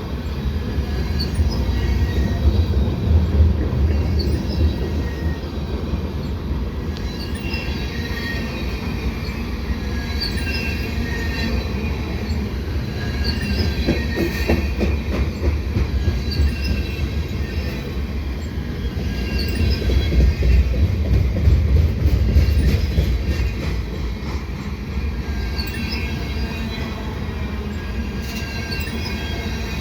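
Freight cars of a long freight train rolling past: a steady low rumble of wheels on rail, swelling twice, with short high wheel squeals recurring every few seconds.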